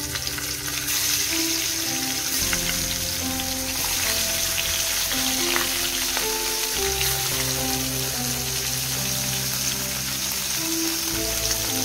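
Turmeric-coated hilsa fish pieces frying in hot mustard oil in a pan, a steady dense sizzle. Background music with slow stepping notes and a bass line plays underneath.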